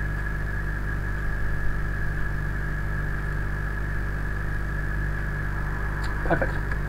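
Steady electrical mains hum in the recording, a low hum with a thin higher whine, running evenly. A brief noise breaks in near the end.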